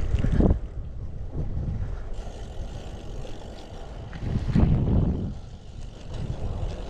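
Wind rumbling on the microphone of a camera carried on a moving bicycle, with two louder gusts, one near the start and one about four and a half seconds in.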